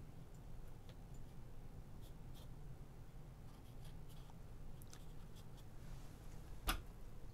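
Faint, light strokes of a watercolour brush on paper, with a few soft ticks over a low steady room hum. A single sharp click comes near the end.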